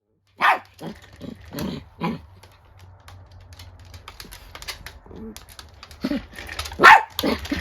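Small dogs barking angrily in short sharp bursts: a run of barks in the first two seconds, a quieter stretch with faint light clicks, then a louder cluster of barks near the end.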